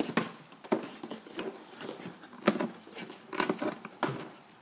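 Hands handling a cardboard shoebox and working its lid off: a handful of irregular sharp taps and knocks with rubbing and scraping between them.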